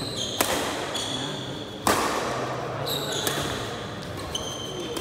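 Shuttlecock struck back and forth by badminton rackets in a rally, four sharp hits about a second and a half apart with the loudest about two seconds in, echoing in a sports hall. Short high squeaks of shoes on the court floor come between the hits.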